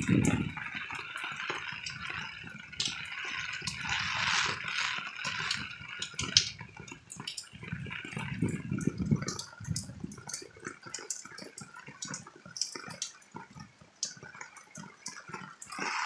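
Heavy rain pouring, a steady hiss full of close drips and splatters of drops. Gusts of wind buffet the microphone with low rumbles now and then, loudest at the start and about halfway through.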